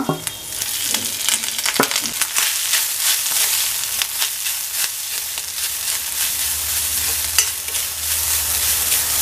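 Oil sizzling in a black kadai as dried shrimp, shallots and grated coconut fry, with a steel spoon scraping and clicking against the pan as it stirs.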